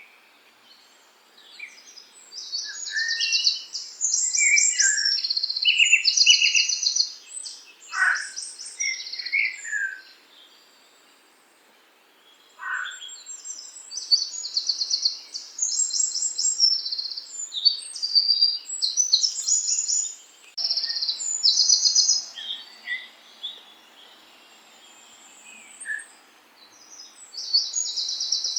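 Songbirds singing: bouts of rapid, high-pitched trilled phrases with a few sharp downward-sweeping notes, broken by short pauses. A faint steady hiss sits beneath them in the second half.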